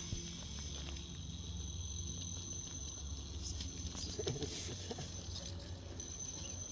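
Radio-controlled rock crawler creeping slowly up a rock crack under its electric drive: a faint, thin, steady high whine over a low hum. The whine drops out about three and a half seconds in and returns near the end.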